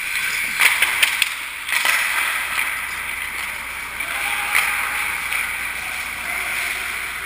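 Ice hockey skates scraping and swishing on rink ice, with a few sharp clacks of sticks and puck between about half a second and two seconds in, and another a little past the middle.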